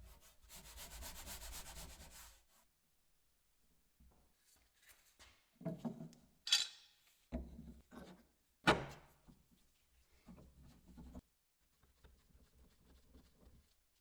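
Hand rubbing and sanding on wood: a quick run of fast strokes, a short pause, then separate slower strokes, two of them sharper and louder.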